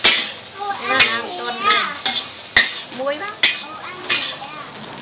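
A metal spatula strikes and scrapes a pan of frying mee kantaing (flat rice noodles with egg), with about five sharp clanks over a steady sizzle.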